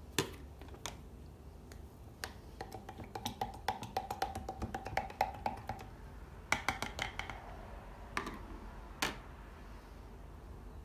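A spoon stirring kefir in a glass jar, clicking rapidly against the glass for about three seconds with a faint ring from the jar. A few separate knocks of spoon and glass on the tabletop come before and after.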